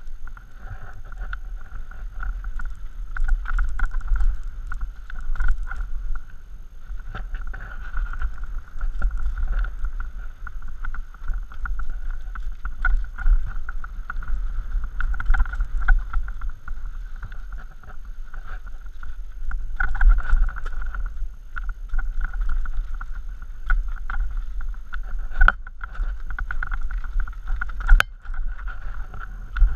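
Mountain bike descending rough dirt singletrack, heard from a helmet-mounted camera: wind buffeting the microphone with a low rumble, tyres rolling over dirt and rock, and the bike rattling, with two sharp knocks near the end.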